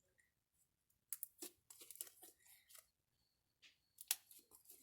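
Homemade slime being kneaded by hand: faint, irregular sticky crackles and little pops as it is stretched and pressed.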